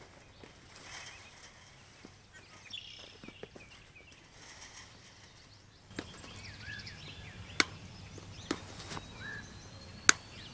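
A roll of thin, green-coated welded wire fence being unrolled and handled over grass: faint rustling, then four sharp clicks of the wire in the second half, the loudest near the end.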